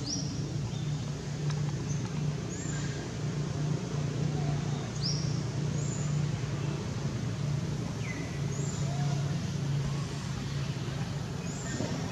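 Steady outdoor background of road-traffic hum and noise, with short high chirps every few seconds.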